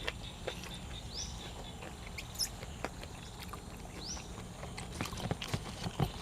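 Close-up eating sounds of someone chewing cuttlefish and fresh vegetables: scattered wet mouth clicks and smacks that come thicker about five seconds in. A short rising chirp sounds faintly twice behind them.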